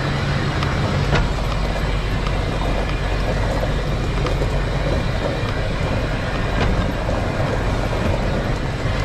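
Steady engine and road noise of a vehicle on the move, with a couple of faint ticks.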